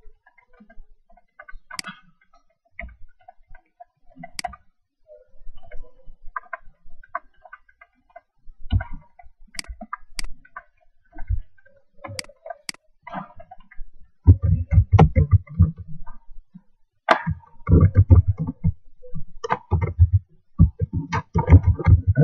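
Typing on an ASUS K54 laptop keyboard. There are scattered light clicks at first, then about two-thirds of the way in a quick, uneven run of louder key strikes with a dull thud to each.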